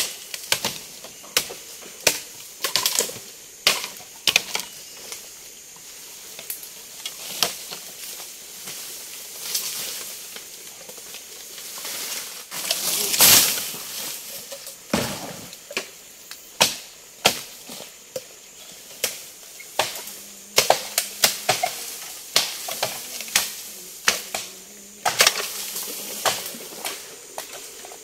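Blade strikes chopping bamboo, sharp irregular knocks that come in quick runs. A louder rustle lasting about a second comes about thirteen seconds in.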